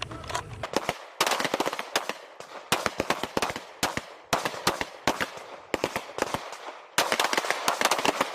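Pistol gunfire from several shooters at once: rapid, overlapping shots, thickest from about a second in and again near the end.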